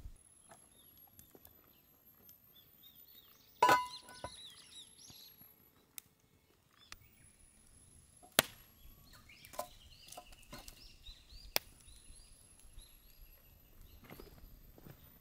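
A handful of sharp knocks and clatters from firewood and a metal Dutch oven being handled on a stacked-brick stove. The loudest is about four seconds in and rings briefly like metal. Faint bird chirps sound between the knocks.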